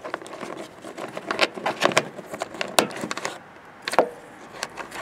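Irregular clicks and rustling as marker-light wires are tucked into the mounting hole and the plastic light housing is handled, with a few sharper clicks.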